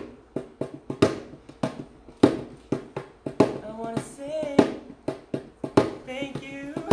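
An improvised percussive beat of sharp hits in a steady rhythm, a strong hit about every second with lighter ones in between. A voice sings a short melodic line over it about halfway through and again near the end.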